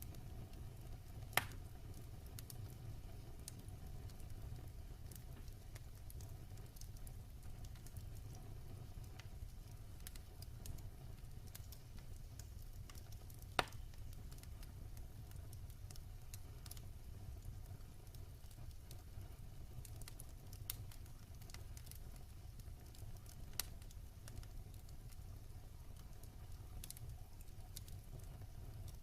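Wood fire burning in a fireplace with a steady low rumble and scattered crackles, with two sharp pops from the burning logs, one about a second in and one about halfway through.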